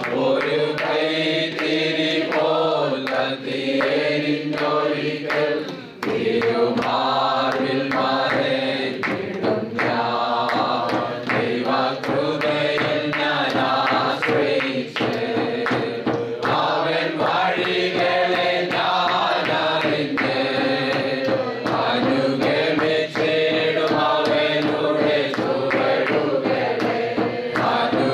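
A Malayalam Christian worship song sung into a microphone with musical accompaniment and a steady beat.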